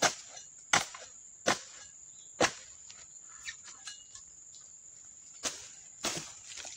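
Oil palm dodos, a chisel blade on a pole, chopping into the stalks at the base of a young oil palm's crown: four sharp chops about one every three-quarters of a second, a pause, then a few lighter chops near the end.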